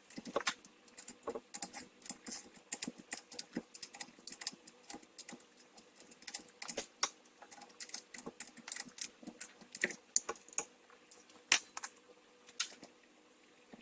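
Small metallic clicking and clinking of hand tools and parts as a shock-absorber strut is taken apart, in many quick, irregular clicks.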